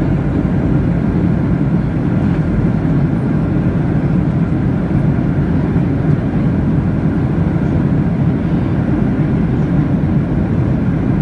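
Airplane cabin noise heard from inside the passenger cabin: a steady, loud, deep rumble of engines and rushing air that does not change.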